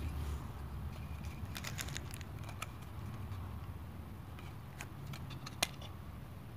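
Soft handling rustle and small plastic clicks as a camera lens is turned over in the hands. Near the end comes one sharper click as the pinch-type Canon front lens cap is unclipped.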